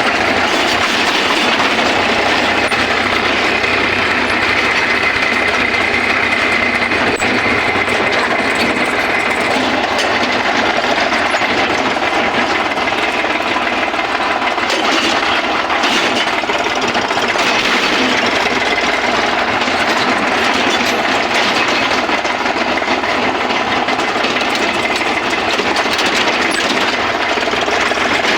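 Indo Farm tractor's diesel engine running steadily as the tractor is driven, with a dense rattling mechanical noise.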